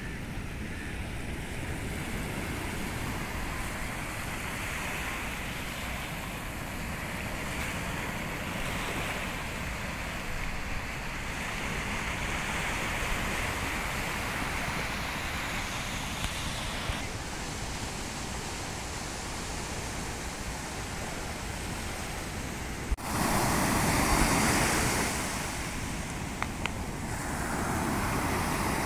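Sea surf washing steadily onto a sandy beach. About three-quarters of the way through the sound changes abruptly to a louder wash of breaking waves, and it swells again near the end.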